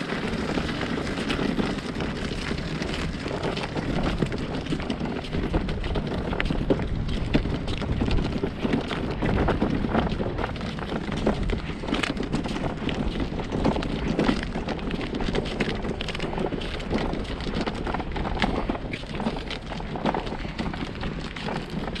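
Wind buffeting the microphone in a steady rumble, with many short irregular crunches of footsteps on sand scattered with broken shells.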